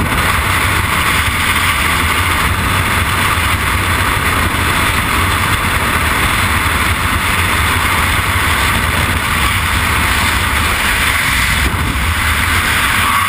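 Freefall wind rushing over a helmet-mounted camera's microphone: a steady, loud low rumble of buffeting with a hiss over it.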